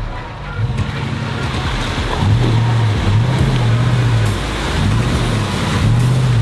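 Toyota Land Cruiser 100 driving through deep mud and puddle water: its engine revs rise and fall several times as the wheels churn and splash through the mud.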